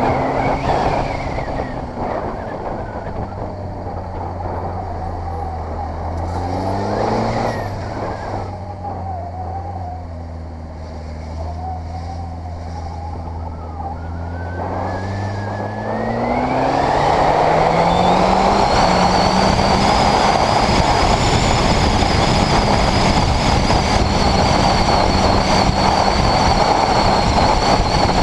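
Honda CBR600RR's inline-four engine running at low revs at walking pace with a couple of small throttle blips. About 16 seconds in it revs up and the bike accelerates, then holds a steady, louder, higher note.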